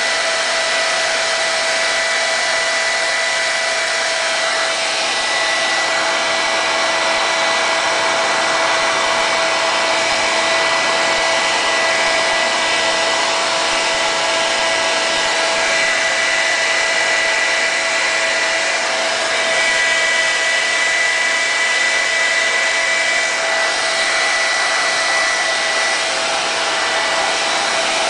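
Handheld hair dryer running steadily: a rush of blown air with a steady whine. It is heating a vinyl sticker to soften its adhesive for peeling.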